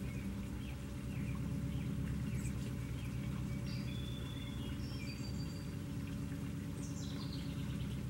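Water from a hand-pump fountain spout splashing steadily into a rock-edged pool, over a low steady hum. Small birds chirp and call on and off above it, with a short whistled note about four seconds in.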